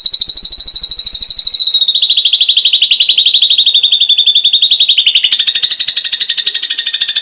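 Ashy drongo giving one long, rapid, evenly pulsed trill held near one pitch, which steps down slightly about two seconds in.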